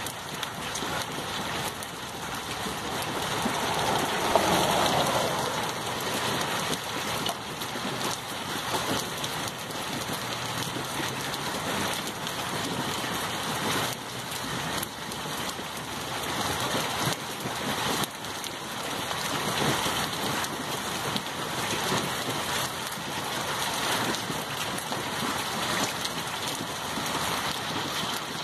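Hail and rain pelting a wet asphalt road and the ground: a dense, steady patter of countless small hits, swelling a little louder about four seconds in.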